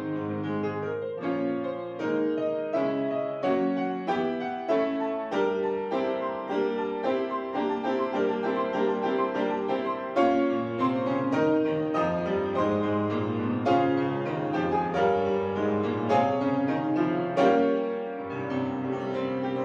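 Grand piano played solo, a steady stream of notes and chords, with a rising run in the lower and middle register about halfway through.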